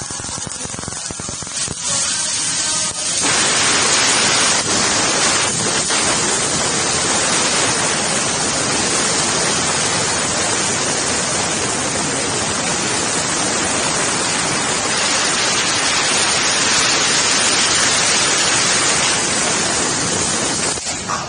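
3015 sheet-metal laser cutting machine at work, giving a steady loud hiss that swells up about three seconds in and drops away just before the end.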